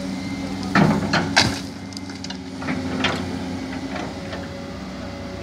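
Komatsu wheeled excavator's diesel engine running steadily, with a few sharp cracks and snaps about a second in and again near three seconds as its bucket tears roots and branches out of the mud.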